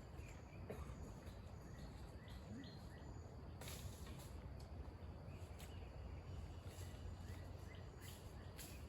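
Faint outdoor ambience: a steady low rumble with scattered short bird chirps, and a brief rustle about four seconds in and again near the end.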